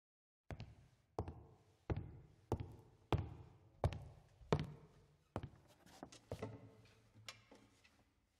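A series of sharp knocks, each with a short ringing tail, about one every two-thirds of a second. After seven strong ones they come lighter and more irregular toward the end.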